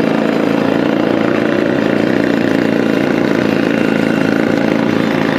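An engine running steadily at constant speed, a continuous droning hum.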